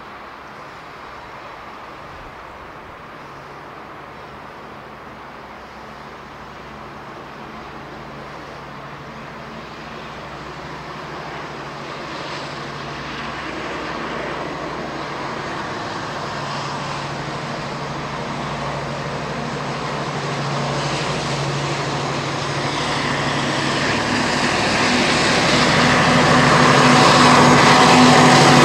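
Class 70 diesel-electric locomotive (GE PowerHaul V16) hauling a container train, its steady engine drone growing steadily louder as it approaches and loudest near the end as it comes level.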